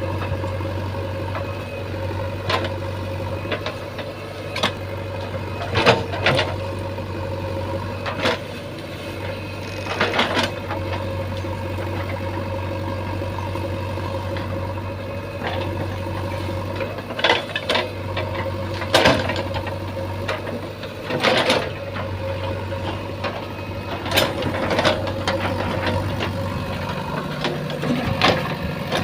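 JCB 3DX backhoe loader's diesel engine running steadily while working, with sharp clanks and knocks every few seconds. The low engine note shifts near the end.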